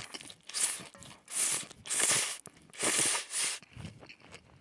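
A person slurping cold spicy bibim noodles off chopsticks, several noisy slurps about a second apart with chewing between them, close on a headset microphone.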